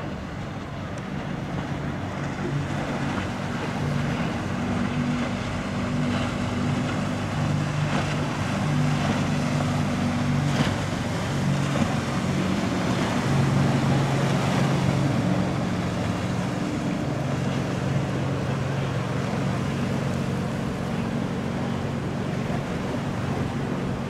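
A motorboat's engine running with a steady low hum as the boat passes through the inlet, growing louder toward the middle and easing off after, over a hiss of wind and water.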